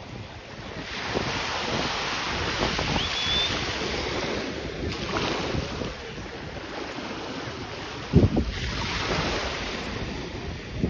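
Small waves washing in over a sandy shore, with wind buffeting the microphone. A sharp gust thumps on the microphone about eight seconds in.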